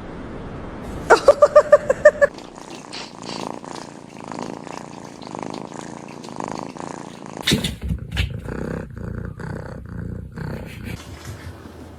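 Domestic cat purring, a soft, evenly pulsing rumble lasting several seconds. It follows a quick run of about eight short high-pitched sounds about a second in. Near the end a few clicks and brief scattered sounds come in.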